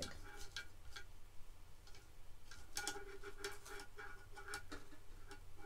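Light clicks and taps of small decorations being handled and set on a tiered tray: a few in the first second, then a longer run after a pause of about two seconds.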